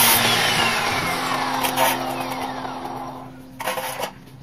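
Stanley 2200 W abrasive cut-off saw finishing a cut through steel bar, then released: the cutting noise stops just after the start and the motor and abrasive disc wind down with a falling whine, fading steadily. A few knocks follow near the end.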